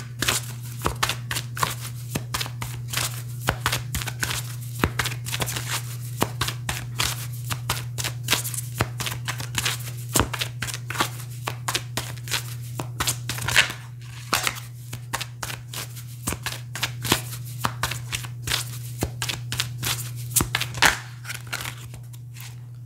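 A deck of oracle cards being shuffled by hand: a quick, uneven run of soft slaps and flicks of card on card that stops about a second before the end, over a steady low hum.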